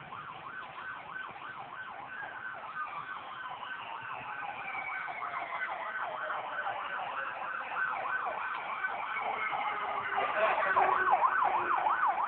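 Electronic siren in fast yelp mode, its pitch sweeping up and down about three times a second and growing louder as it approaches. A second, slower siren tone falls steadily in pitch underneath.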